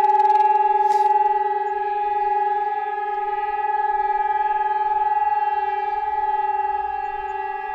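SD-10 air raid siren sounding a steady, held tone with several overtones and no rise or fall in pitch. A brief crackle comes about a second in.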